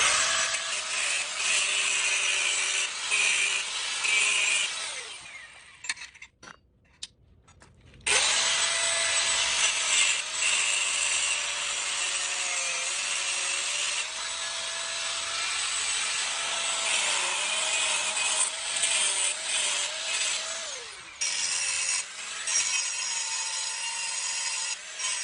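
A power cutting tool cuts through the stock exhaust's metal bracket, its motor tone running steadily under a harsh grinding hiss. It winds down about five seconds in, starts again about three seconds later, and winds down once more near the end.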